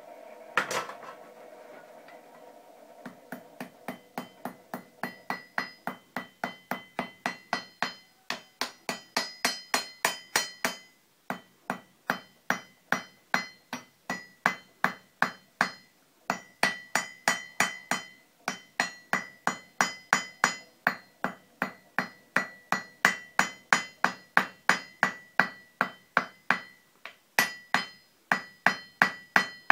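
Blacksmith's hand hammer striking hot 3/8-inch steel rod on an anvil while forging rivets. There is one blow about a second in, then steady hammering from about three seconds in at two to three blows a second, each blow ringing off the anvil, with two brief pauses.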